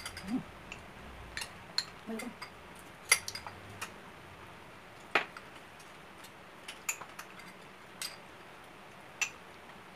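Metal spoons clicking and scraping against tubs of ice cream while people eat: scattered sharp clicks, about one every second or so.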